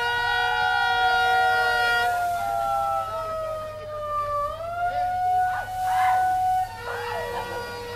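Several siren tones sounding at once, overlapping and sliding slowly up and down in pitch, loud for most of the time and thinning out near the end.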